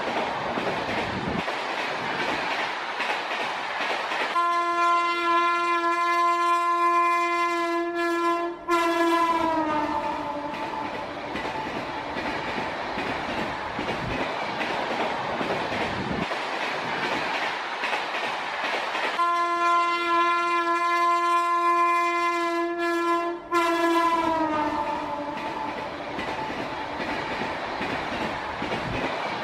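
Diesel train running, with its horn sounding two long blasts about fifteen seconds apart, each lasting about four seconds and dropping in pitch as it ends.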